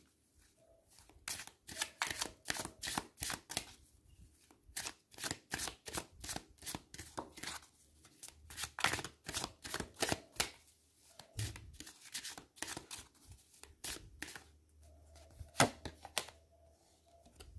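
A deck of tarot cards shuffled by hand: runs of quick, light card slaps, about four a second, broken by short pauses.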